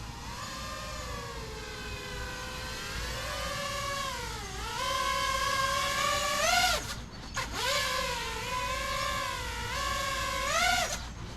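5-inch FPV freestyle quadcopter on a 6-cell battery, its brushless motors and propellers whining and rising and falling in pitch with the throttle. The whine drops away briefly about seven seconds in, then comes back with quick up-and-down surges near the end.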